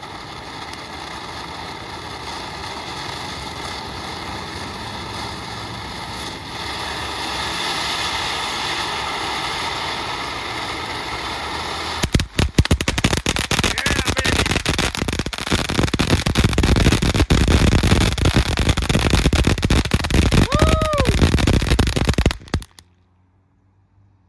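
TNT Mad Trolls ground fountain firework burning: a steady spraying hiss that builds for about twelve seconds, then gives way to loud, dense crackling for about ten seconds before stopping abruptly as the fountain burns out.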